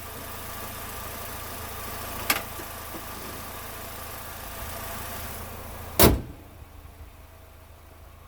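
GM 2.4-litre twin cam four-cylinder idling steadily on fresh spark plugs, running smoothly. A short click about two seconds in, and a loud slam about six seconds in, after which the engine sounds quieter.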